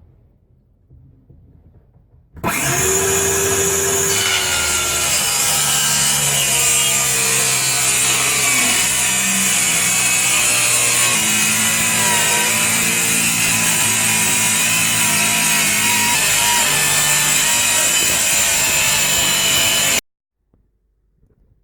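Power saw cutting wood: a loud, steady cutting noise that starts abruptly a couple of seconds in and stops sharply near the end, trimming boards that are about a quarter inch too wide to fit flush.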